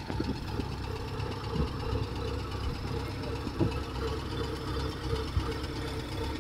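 Combine harvester's diesel engine idling steadily, with a few short knocks.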